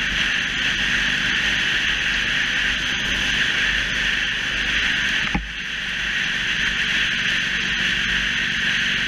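Wind rushing over an action camera's microphone on a moving motorcycle, with a Yamaha YBR125's single-cylinder four-stroke engine running steadily underneath. A little over halfway through there is a brief knock and a short dip in the noise.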